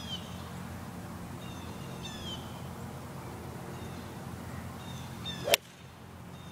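A golf club strikes the ball with one sharp crack about five and a half seconds in, during a tee shot. Before it, short descending bird chirps sound a few times over a steady outdoor background.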